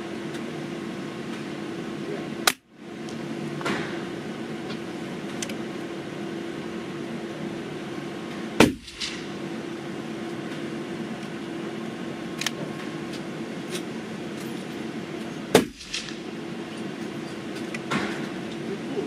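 Three shots from a Pedersoli Black Widow .22 LR rifle, sharp cracks about six to seven seconds apart, part of a five-shot group, with fainter clicks between shots and a steady low hum underneath.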